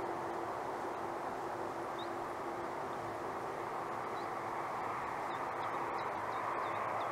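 Steady outdoor background noise with a faint steady hum underneath, like distant machinery or traffic. Short high bird chirps come in about two seconds in and grow more frequent near the end.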